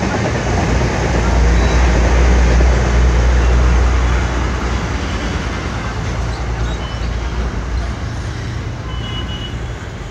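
WDM3A diesel locomotive's 16-cylinder ALCO engine running under power with a deep steady note over the continuous noise of the train on the rails. It is loudest in the first few seconds, then slowly gets quieter, and the low engine note drops away about eight seconds in.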